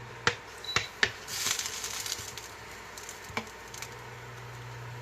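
A spatula clicks sharply against the pan three times in the first second as a sandwich is flipped and checked, followed by a brief hiss of sizzling for about a second, and one more click a little after three seconds.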